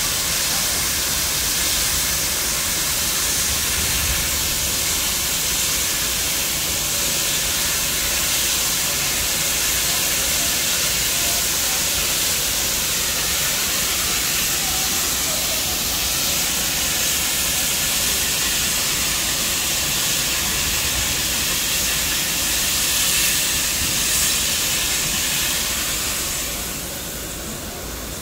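Steam locomotive 3801, a 4-6-2, standing at the platform with steam hissing from it, a steady loud hiss that drops away in the last couple of seconds.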